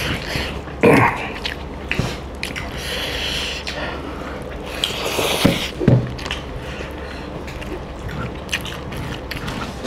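Close-up eating sounds: chewing and lip smacks, with fingers squishing and scooping curry-soaked rice, in scattered short clicks and wet smacks.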